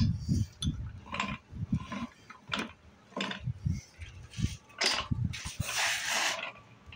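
Handling noise around a stripped-down Ford Toploader four-speed gearbox: irregular knocks, clunks and clicks of metal parts with rustling, and a longer rushing scrape about six seconds in.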